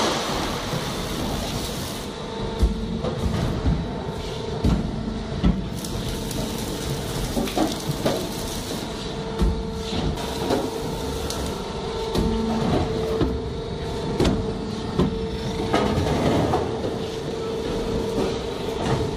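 Metal roofing-sheet roll-forming machine running: a steady mechanical hum with a held tone, broken by scattered clanks and knocks.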